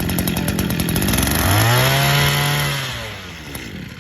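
Brush cutter's small petrol engine running just after being pull-started, revved up about a second and a half in and then dropping back to idle near the end.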